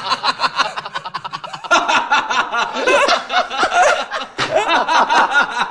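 Men laughing loudly and hard, a fast run of ha-ha-ha pulses with one voice overlapping another.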